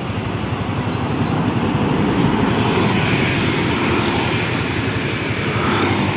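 Steady motor-vehicle noise from riding along a busy city road: engine running with wind and tyre noise, and other motorcycles and traffic passing close by.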